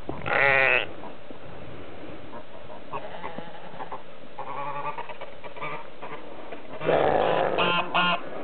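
Scottish Blackface sheep bleating for their feed: a loud, wavering bleat about half a second in, fainter bleats through the middle, and a louder, rougher run of calls near the end.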